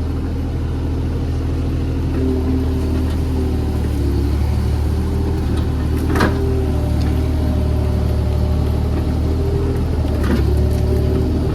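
JCB JS30 Plus mini excavator's diesel engine running steadily as it works, with tones shifting as the machine is worked. There is a sharp clank about six seconds in and a softer knock near the end.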